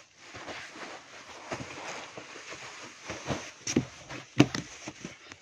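Rustling and several dull thumps, strongest in the second half, as the foam blocks of a polyester-covered kids' sofa-bed are handled and shifted, with the camera jostled.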